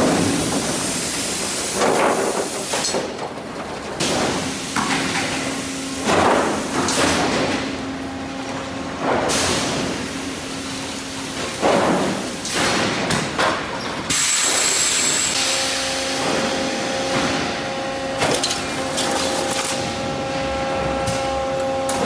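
Sawmill lumber-handling machinery running, with boards clattering and knocking every couple of seconds over a steady machine hum.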